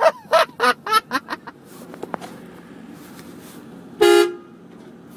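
A run of short, high, voice-like whoops in the first second and a half, then one short blast of the pickup's air horn about four seconds in.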